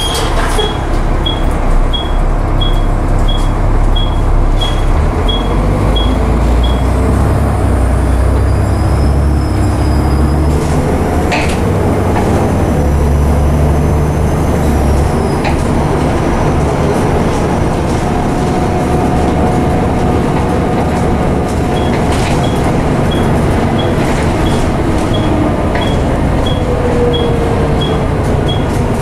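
Volvo B7TL double-decker bus heard from inside the lower deck while moving: engine and drivetrain rumble, heaviest about a third to half of the way in as it pulls away, with rattles and road noise. A short high beep repeats about twice a second at the start and again from about three-quarters through.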